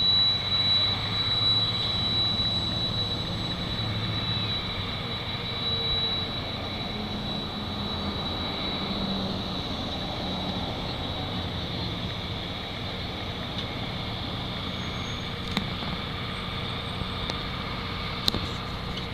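Passenger cars of a Union Pacific train rolling slowly past on the rails, with a steady rumble and a steady high-pitched wheel squeal that slowly fades. A couple of sharp clicks come near the end.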